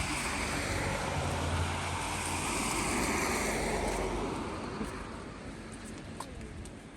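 A motor vehicle driving past on a wet road: a loud hiss of tyres on water with a low engine rumble, fading away over the last couple of seconds.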